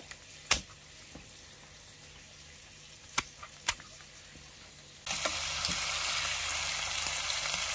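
Kitchen shears snipping through wild-pig rib bones in a few sharp snips. About five seconds in, a steady sizzle starts suddenly as a rib piece goes into hot avocado oil in a pan.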